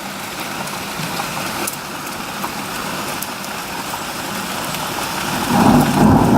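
Heavy rain falling steadily in a downpour; about five and a half seconds in, a loud low rumble of thunder sets in and keeps going.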